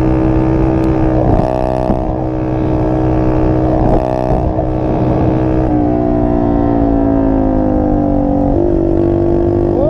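Small dirt bike engine running steadily under the rider at road speed, its pitch falling from about six seconds in as the throttle eases off. Two short rushes of wind noise on the microphone about one and a half and four seconds in.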